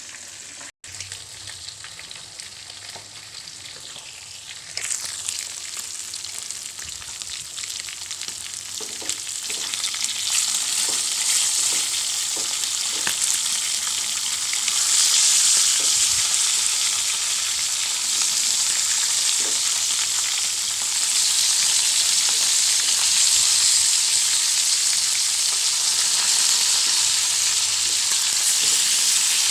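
Fish frying in hot oil in a pan: a steady sizzle that grows louder about five seconds in and again around ten and fifteen seconds in.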